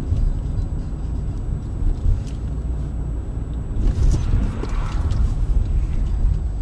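Low, steady road and engine rumble inside a moving car, picked up by a dashcam, with a brief swell of hissy noise about four seconds in.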